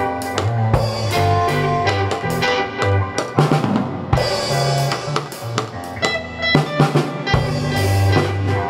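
Rock band music: a drum kit beat with bass drum and snare, a bass line underneath, and held synthesizer and guitar tones.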